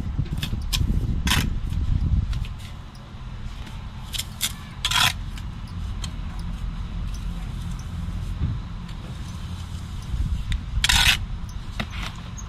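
A handful of short, sharp scrapes of a metal bricklaying trowel on mortar and concrete block, the loudest about eleven seconds in, over a steady low rumble.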